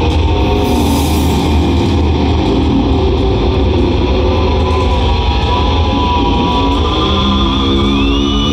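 Heavy metal band playing live at full volume: distorted electric guitars over drums and heavy bass, overloading the phone's recording. Near the end a high note slides up and holds briefly.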